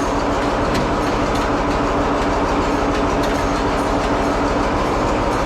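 Antique tractor engine turning over steadily with a continuous mechanical clatter.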